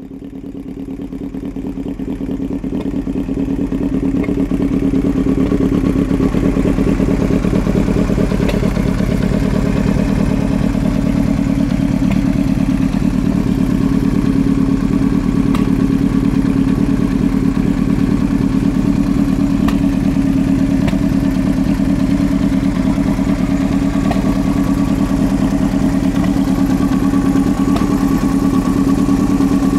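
Yamaha R1 sport bike's inline-four engine idling steadily through an aftermarket Yoshimura exhaust. The sound grows louder over the first few seconds, then holds an even pitch with no revving.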